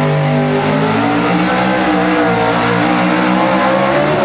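Chevrolet pickup's 6200 cc small-block V8 running hard at high revs while pulling a weight-transfer sled. Its pitch drops about a second in, holds, then falls away near the end.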